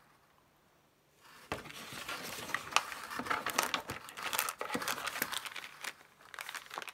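Near silence for about the first second, then packaging crinkling and rustling with many sharp clicks as it is handled.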